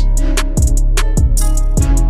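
Background music with a steady beat: kick drum about every 0.6 s, hi-hat ticks and plucked or strummed guitar.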